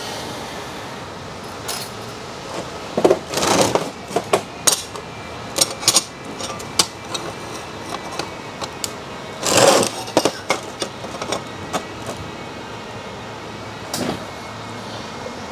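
TIG tack welding: a few short bursts of arc about three, ten and fourteen seconds in. Between them come sharp clicks and clinks of metal parts being handled and positioned, over a steady workshop hum.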